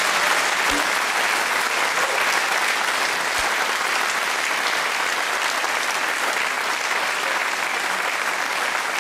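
Studio audience applauding: many hands clapping in a dense, steady patter.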